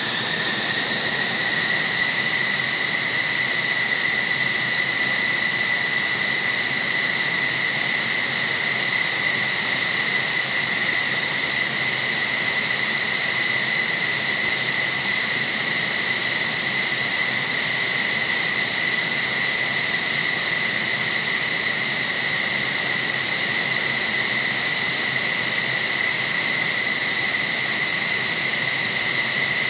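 F-15SG jet turbines running on the ground: a steady high whine over a rush of noise. The pitch rises slightly in the first second or two, then holds steady.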